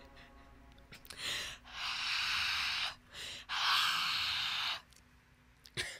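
Heavy, noisy breathing: three long breaths, each lasting about a second, in the closing seconds of a song recording.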